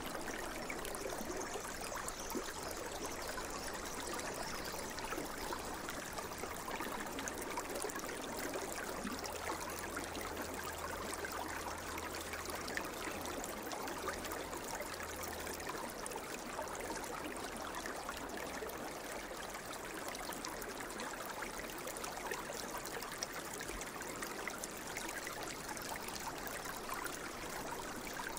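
Steady sound of flowing water like a running stream, used as a relaxation sound bed, with a faint low hum underneath that fades out about halfway through.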